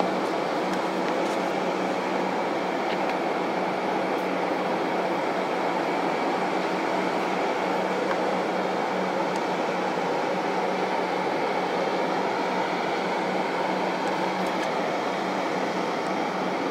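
Airbus A320's auxiliary power unit running steadily while the airliner is parked at the stand: a constant roar with a steady low hum and a high whine, unchanging in pitch.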